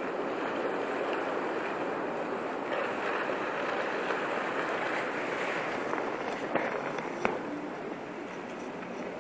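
Pancake ice floes drifting on a river, a steady hissing, grinding rush of ice and water with no distinct tones. Two short sharp clicks come about two-thirds of the way through.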